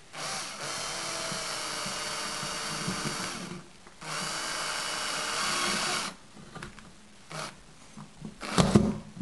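Power drill driving a screw into drywall, run twice: about three seconds, a brief stop, then about two seconds more. A short thump near the end.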